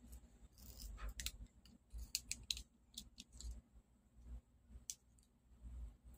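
Faint, scattered small clicks and a brief scrape as pieces of double-sided adhesive tape are cut from a small roll with a utility knife.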